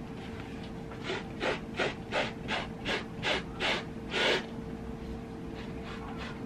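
Quick series of about nine brushing, scraping strokes, roughly three a second, as loose moss is swept with a hand and a tarot card across a cloth-covered table during cleanup. The strokes stop a little after four seconds in.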